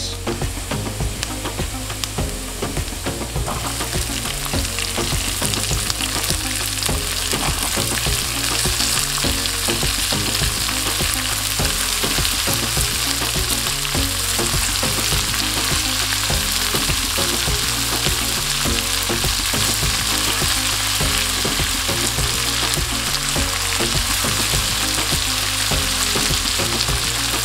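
Chopped onions frying in hot mustard oil with ginger, garlic and green chillies, being stirred in the pan: a steady sizzle that builds over the first few seconds and then holds.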